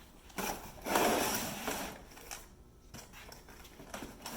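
Cardboard box and packaging being opened and handled: a rustling, crinkling noise for about two seconds, then a few light clicks and knocks.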